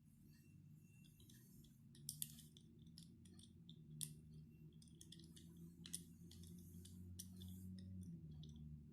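Near silence: faint, irregular light clicks over a low steady hum that slowly grows louder.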